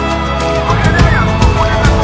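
Instrumental music with a steady drum beat, held chords and short gliding lead lines, in a passage with no singing.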